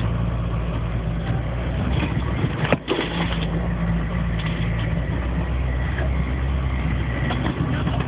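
Land Rover engine running steadily as it drives through deep snow, heard from inside the cabin, with a constant low hum and road noise. A single sharp knock comes a little under three seconds in.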